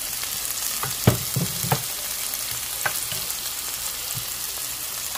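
Chopped aromatic vegetables (onion, garlic, celery, sweet and hot peppers) sizzling steadily in hot fat in a frying pan. A few sharp knocks come through it, the loudest about a second in.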